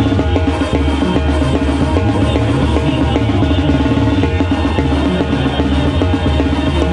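Live banda music: sousaphone, trumpets and trombones playing with timbales and cymbals struck close to the microphone, in a steady rhythm.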